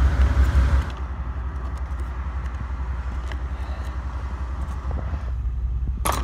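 Pickup truck engine idling with a steady low rumble, left running because its battery is dead. Wind buffets the microphone for the first second. A sharp metallic clank of hand tools in a toolbox comes near the end.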